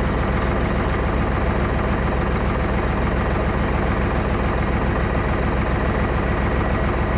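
Tractor engine idling steadily with an even, rapid low pulse, powering the hydraulics of a trailed bale wrapper as its loading arm lifts.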